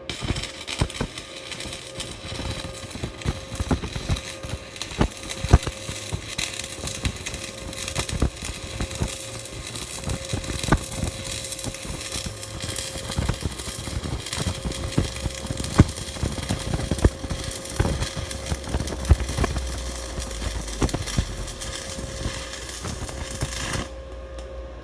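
Stick (SMAW) welding arc from an EliteArc 161S inverter welder at about 100 amps on a 1/8-inch electrode: a steady, sizzling crackle with frequent sharp pops. It cuts off suddenly near the end as the arc is broken.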